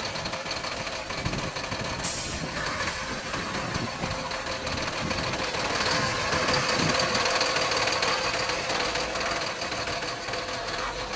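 BharatBenz 2823C tipper truck's diesel engine running at low speed as the truck manoeuvres slowly on full lock, with a short hiss about two seconds in. It grows louder from about six seconds in.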